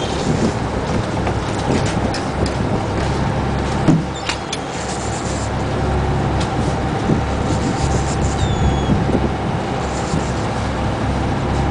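Fishing boat's engine running steadily, a low hum, with a sharp knock about four seconds in. A seabird gives a brief high falling cry near the end.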